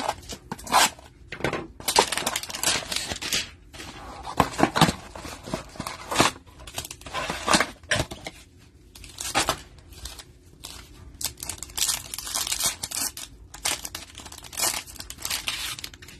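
Cardboard hanger box of trading cards and its foil card packs being torn open and crinkled by hand, in irregular bursts of ripping and rustling.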